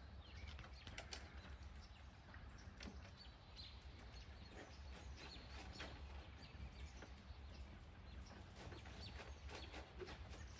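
Faint outdoor ambience with birds chirping in short scattered calls, over a steady low rumble.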